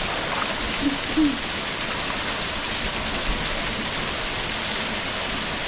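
Steady rush and splash of water falling from a small waterfall, even and unbroken. A brief faint voice sounds about a second in.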